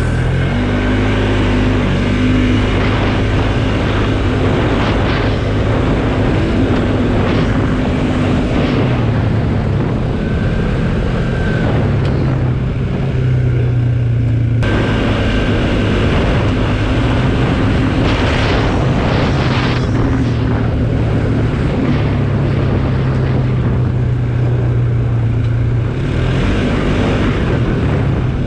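Polaris ATV engine running under way, its pitch drifting up and down as the throttle changes, over a haze of riding noise. The sound changes abruptly about halfway through.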